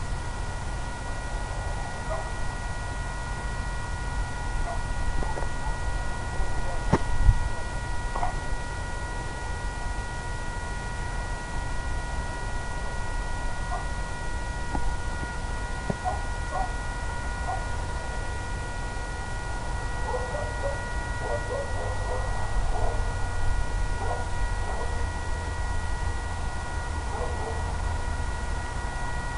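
Steady hum made of several constant high tones over a low rumble, with one sharp click about seven seconds in and faint short chirps scattered through.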